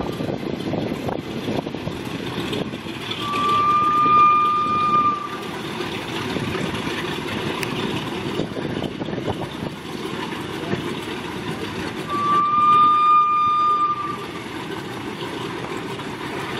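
The four radial engines of a B-17 Flying Fortress run steadily as it taxis. Twice, about three seconds in and again about twelve seconds in, a high steady squeal of about two seconds sounds over the engines.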